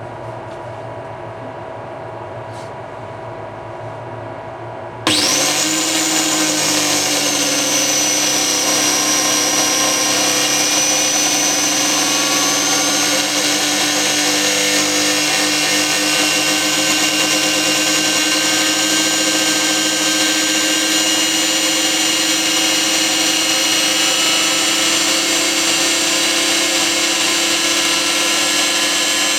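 Pressure washer's electric motor, with one bearing worn out, starting up suddenly about five seconds in and then running flat out with a loud, steady whine made of many tones. Before it, a quieter steady hum.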